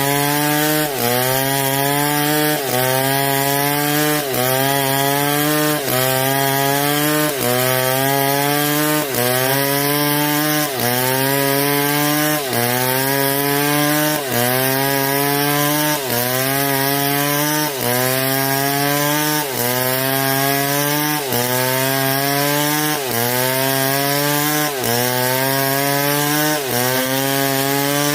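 Chainsaw cutting wood. The engine pitch dips sharply and then climbs back up in even cycles, about every second and a half to two seconds.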